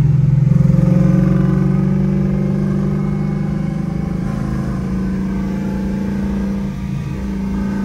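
Ford Mustang's engine and exhaust heard from inside the cabin, a steady low drone while cruising at low speed, easing off slightly after the first couple of seconds.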